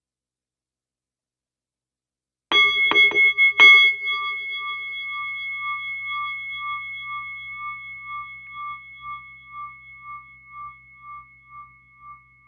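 Silence, then about two and a half seconds in, a bell-like metal chime such as a singing bowl is struck about four times in quick succession. It rings on in a few steady tones that fade slowly with a regular wavering.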